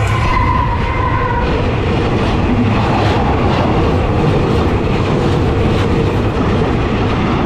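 CSR-class diesel locomotive 5108, heading a container freight train, passing directly over the rails: a loud, steady rumble of engine and wheels with rhythmic wheel clacks.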